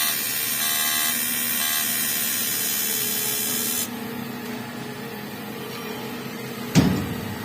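Automatic TIG welding arc on an aluminum air-cylinder fitting: a harsh steady hiss with a pulsing buzz that cuts off abruptly about four seconds in. A lower machine hum remains, then a single sharp clunk comes near the end.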